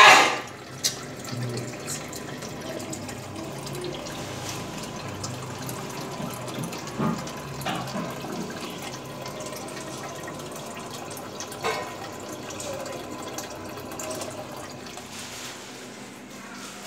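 Aquarium water running and trickling steadily, with a loud brief burst right at the start and a few shorter, quieter sounds later on.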